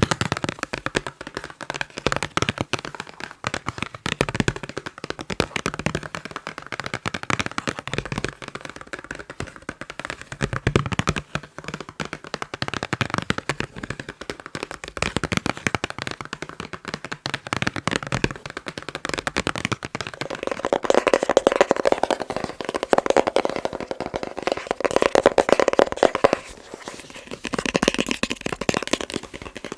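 Fast, continuous tapping on boxes, a dense run of quick taps. About two-thirds of the way through, the taps grow louder and deeper for several seconds before thinning out again.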